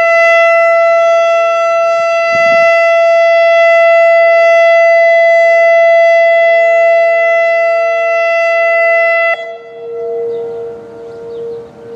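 American Signal Quadren Q-3200 electronic outdoor warning siren sounding its steady alert tone, one held pitch rich in overtones, which cuts off suddenly about nine seconds in. A lower, fainter, slightly wavering steady siren tone from a second, more distant Whelen WPS-2810 siren carries on underneath and after it.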